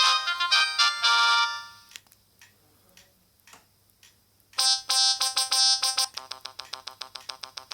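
Polyphonic ringtones playing from a Samsung SGH E300's speaker. One chiming melody fades out about two seconds in, and a few faint clicks follow. A new tune starts about four and a half seconds in, then turns into a quick, evenly repeating run of notes.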